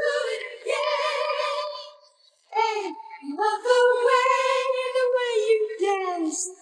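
Isolated male lead vocal from a 1979 pop-disco song, stripped of its backing band, singing long high notes with vibrato. There is a brief break for breath about two seconds in.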